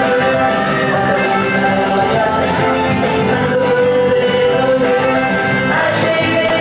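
Song music with a steady beat and held sung or played notes, accompanying a stage dance number.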